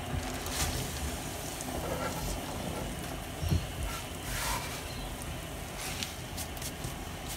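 Soup simmering steadily in an open pot, with a few soft knocks and rustles as handfuls of chopped greens are dropped in.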